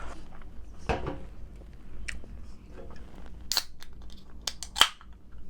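Close-miked eating and handling sounds: scattered sharp clicks and crackles, with two louder snaps about three and a half and five seconds in.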